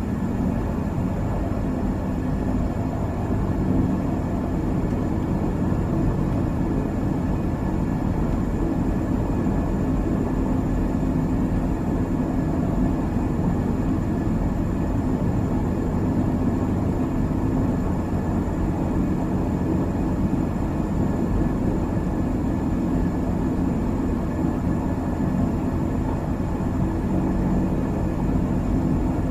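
Cabin interior of a Beechcraft King Air twin turboprop taxiing: a steady low drone from the PT6A engines and propellers, with a thin, steady high turbine whine over it.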